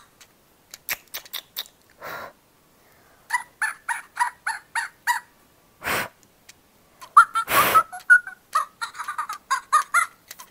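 WowWee Fingerlings baby monkey toy making its electronic monkey sounds through its small speaker, its response to being stroked: two runs of short repeated calls, about three a second, one starting about three seconds in and one about seven seconds in, with a few short hissy bursts between them, the loudest just before the second run.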